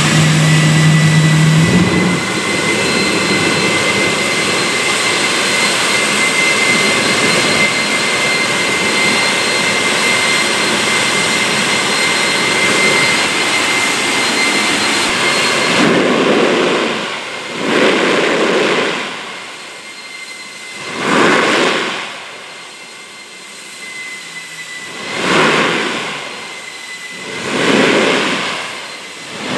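GE J79 turbojet running loud and steady with a high compressor whine over the roar, just above flight idle. About halfway through it drops back to ground idle, and a lower rumble swells and fades every few seconds.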